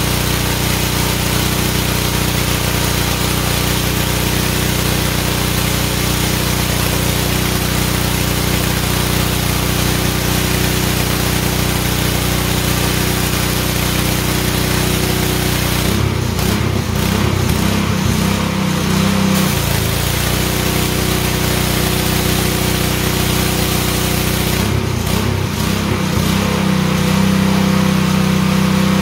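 DeWalt 3600 PSI gas pressure washer running steadily, its small engine's hum under the hiss of the high-pressure spray. About sixteen seconds in, and again near the end, the hiss thins and the engine note shifts, as the spray gun's trigger is let go.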